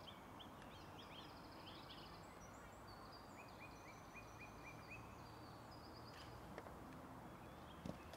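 Faint forest birdsong: several small birds giving repeated short chirps and high trills over a quiet background. A single soft knock comes near the end.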